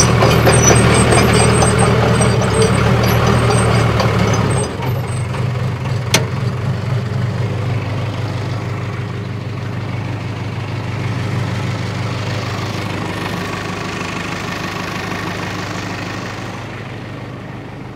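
Bulldozer engine running as the machine moves off. It runs loud for about the first four to five seconds, then eases off, with a sharp click about six seconds in, and gets gradually quieter.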